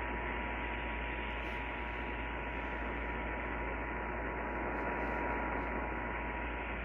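Dead air on a radio broadcast recording: steady radio static and hiss with a low hum under it, and a faint steady tone that stops just before the end.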